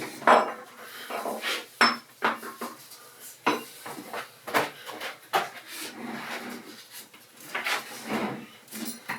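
Irregular metallic clinks and knocks of metal clamps being handled and fitted, many sharp strikes in quick succession.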